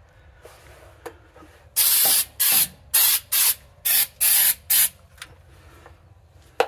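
Aerosol can of 3M rubberized undercoating spraying in about seven short bursts over about three seconds, starting about two seconds in.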